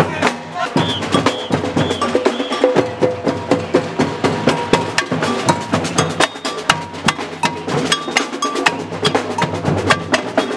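Marching protest drummers beating hand-carried drums and other struck percussion with sticks, a dense, fast clatter of beats.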